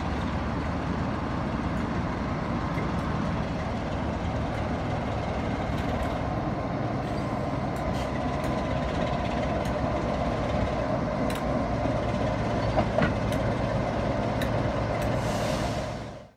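Class 47 diesel locomotive D1842's Sulzer twelve-cylinder engine running as the locomotive draws slowly alongside, a steady heavy drone with a faint whine and a few sharp clicks. The sound fades out near the end.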